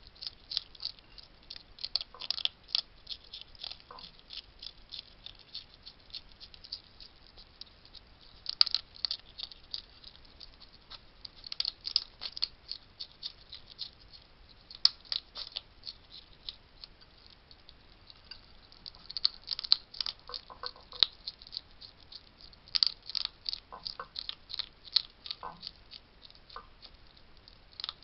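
Wild hedgehogs feeding at a garden feeding station: rapid, irregular crunching and clicking, with dry food rattling and pattering in the dish.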